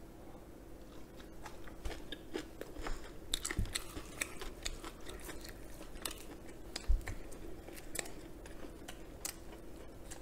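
Close-miked chewing and biting of fried chicken and shredded green onion in sauce: crunching and short mouth clicks from about two seconds in, with one louder thump about seven seconds in.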